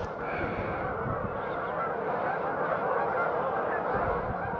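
A flock of waterfowl honking, many calls overlapping into a steady chorus.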